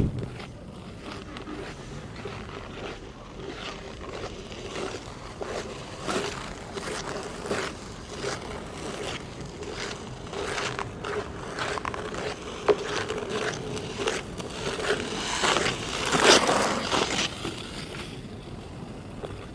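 Ice skate blades scraping and cutting on hard natural black ice, a rhythmic run of strokes that grows loudest about three quarters of the way through as a skater comes close. A faint steady low tone runs underneath.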